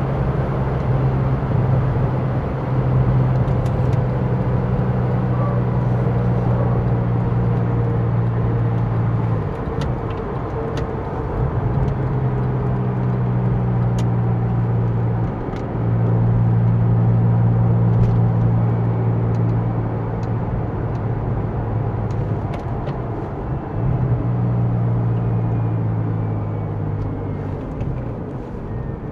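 Porsche 911 (996) Turbo's twin-turbo flat-six running at a steady cruise over road noise, a low even drone. The drone eases off briefly about a third of the way in, again around the middle, and near the end, then picks up at the same pitch.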